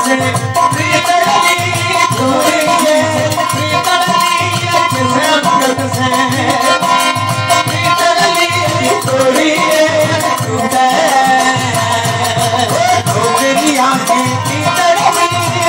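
Live Thari devotional bhajan: a harmonium holds steady reed chords while a man sings over it, with a low, steady beat underneath.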